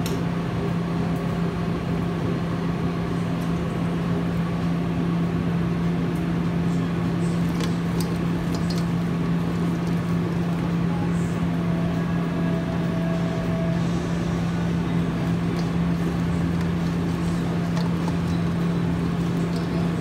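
Steady mechanical hum of commercial kitchen equipment, a constant low drone with a noisy whir over it, with a few faint clinks.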